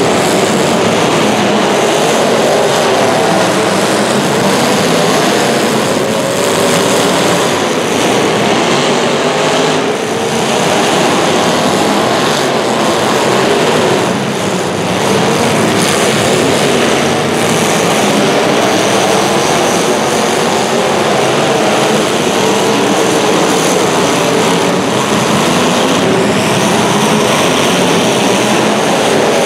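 Racing engines running hard and continuously, their pitch wavering up and down as they rev and ease off.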